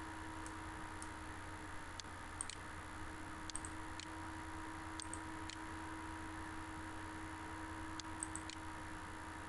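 Faint computer mouse clicks, several in pairs about half a second apart, over a steady electrical hum and hiss.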